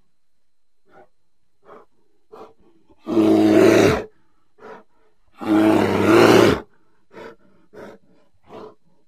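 Bear vocalizing: two loud, deep calls about a second long each, a couple of seconds apart, with short, quieter grunts before, between and after them.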